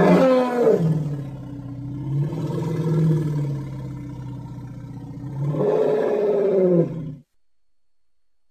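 Triceratops creature roar sound effect: one long, low, bellowing call that drops in pitch after a loud start and holds for several seconds. It swells again near the end and cuts off abruptly.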